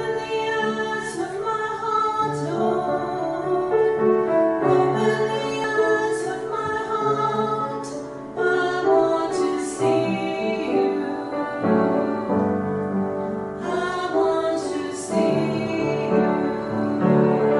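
Choral singing with instrumental accompaniment: sustained notes sung by several voices.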